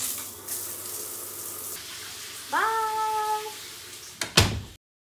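Shower head spraying water, a steady hiss of running water. A little past halfway a short tone rises and then holds for about a second, and near the end come a couple of sharp sounds.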